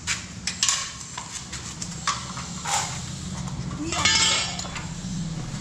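Scattered metallic clicks and knocks as a welded steel saddle-stay frame is handled and set against the motorcycle's rear for a test fit, with a louder rattling scrape about four seconds in. A steady low hum runs underneath.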